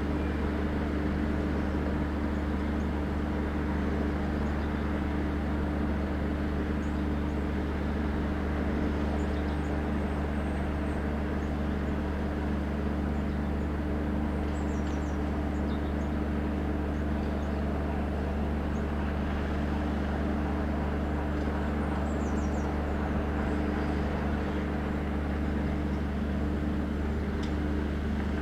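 Class 33 diesel locomotive's Sulzer eight-cylinder engine idling steadily, a deep even hum.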